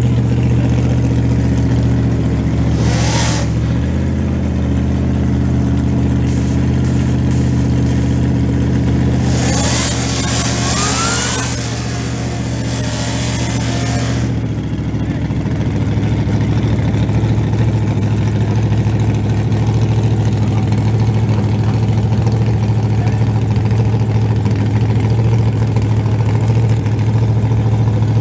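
Drag-race car engines idling loudly and steadily, broken by a burnout: from about nine to fourteen seconds in an engine revs with a rising pitch over the hiss of spinning tyres, after a shorter burst near three seconds.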